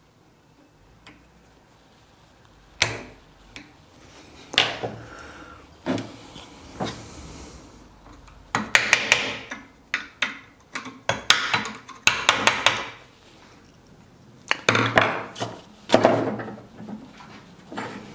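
Metal clicks, clinks and knocks of hand work on a prop shaft universal joint held in a steel bench vise, as a circlip is tried in the bearing cup groove with circlip pliers. A few scattered knocks at first, then quick clusters of clanks from about halfway through.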